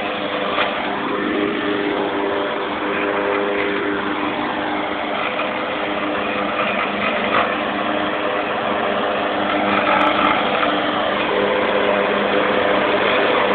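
Riding lawnmower engine running steadily, a little louder over the last few seconds.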